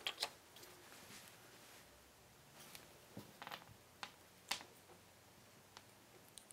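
Faint taps and clicks of small green plastic quadcopter landing-gear legs being handled and set down on a cloth-covered bench: a few short ticks, two together at the start and one about four and a half seconds in the loudest.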